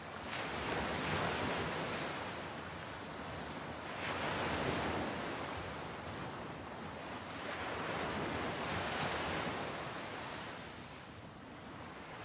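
Sea surf washing onto a rocky shore, a steady rush of water that swells and ebbs about every four seconds as the waves come in.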